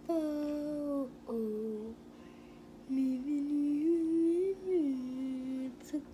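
A voice humming a wordless tune in long held notes that slide from pitch to pitch, breaking off about two seconds in and starting again about a second later.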